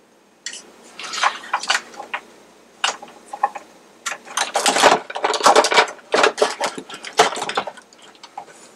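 Handling noise: a run of irregular clicks, rattles and scrapes, busiest from about four seconds in, as a power cord and plug are fumbled into an outlet.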